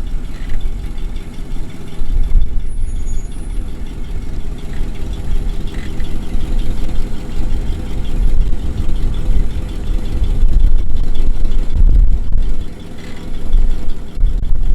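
Jeep CJ-5's engine running as it crawls along off-road in four-wheel-drive low, a loud low rumble that swells and eases.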